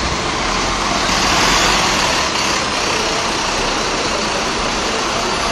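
Three-axle double-decker diesel bus driving past close by and pulling away: a steady rush of engine and road noise that swells a little about a second in.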